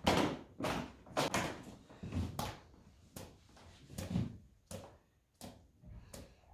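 Quick strokes against a stretched painting canvas, irregular at about two a second, each a brief swish, several with a dull thump from the canvas.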